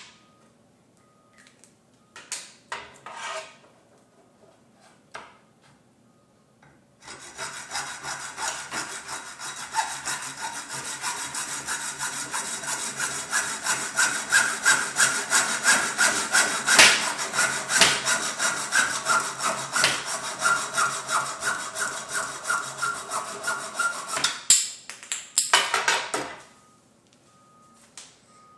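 Hacksaw cutting through 1/2-inch PVC pipe with rapid, even back-and-forth strokes for about seventeen seconds. A few light knocks come before the sawing, and a couple more after the cut.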